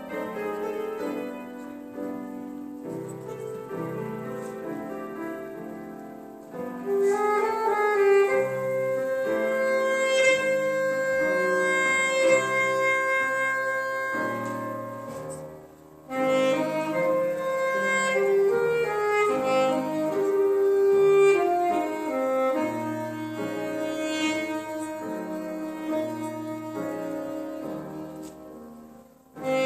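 A woodwind instrument and a grand piano playing a classical piece: piano alone at first, then the wind instrument entering with long held notes about a quarter of the way in. The music breaks briefly about halfway and again just before the end.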